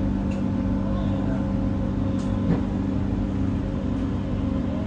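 Steady running noise inside a Doha Metro train carriage: a low rumble with a constant electric hum, and a faint click about two and a half seconds in.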